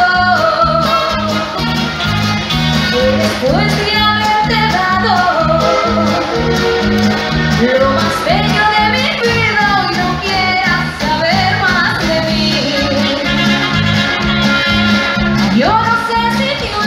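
Live dance band playing a Latin-style song over a steady beat, with a singer's voice sliding between long held notes.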